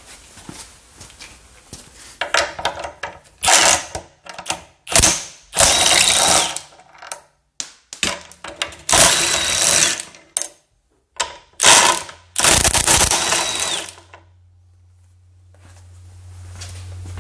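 A RIDGID 18-volt brushless half-inch high-impact wrench hammering in a series of bursts. Some bursts are quick blips and a few last about a second. Near the end a low hum rises in level.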